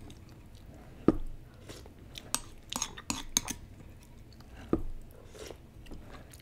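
Close-up eating sounds: a ceramic soup spoon knocking and scraping against a porcelain bowl as it stirs noodle broth, with soft chewing in between. The two sharpest knocks come about a second in and just before five seconds, with a quick run of lighter clicks in the middle.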